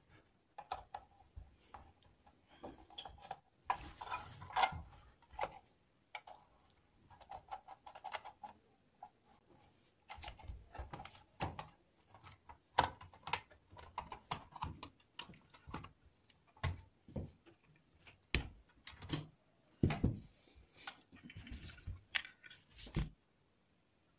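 Handling noises during a repair: irregular clicks, knocks and short scrapes of small hard parts being picked up, moved and set down, stopping suddenly about a second before the end.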